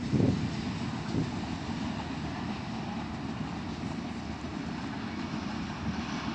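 Low, steady rumble of a container freight train's wagons rolling away along the track, with a brief louder thump right at the start.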